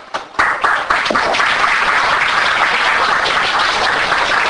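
Audience applauding: a few first claps, then dense, steady applause from about half a second in.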